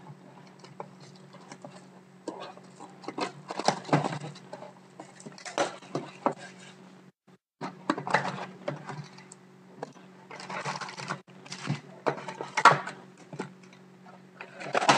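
Cardboard card box being opened by hand and its foil-wrapped card packs pulled out and set down on a table: irregular rustling, scraping and light taps.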